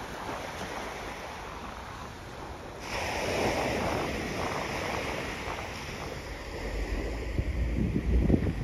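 Surf washing onto a sandy beach, a steady hiss that swells sharply about three seconds in. Wind buffets the phone's microphone with low gusty rumbles near the end.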